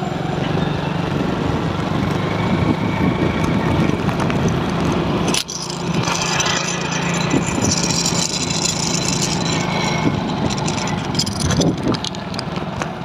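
Motorcycle engine running at a steady speed while under way, with wind noise on the microphone. There is a brief dip about five and a half seconds in.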